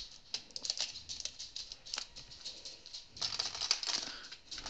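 A quick run of light clicks and rattles from small hard items being handled and put away into a drawer, busiest about three seconds in.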